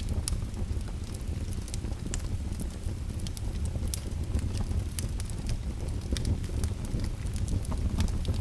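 Crackling fire: irregular sharp pops and snaps, several a second, over a low steady rumble.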